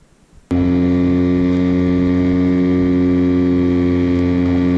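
A small boat's motor running at a steady, unchanging pitch, starting abruptly about half a second in.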